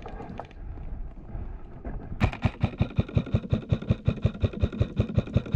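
Modify Xtreme Duty AR-15 airsoft carbine firing a rapid, even string of shots, about eight a second. The string starts about two seconds in and keeps going.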